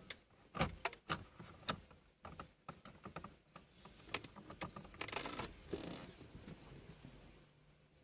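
Hard plastic clicks and knocks from a Renault Twingo's climate control panel and dashboard trim as the panel is pushed and worked into its seat, densest in the first couple of seconds, then a brief rustling noise about five seconds in.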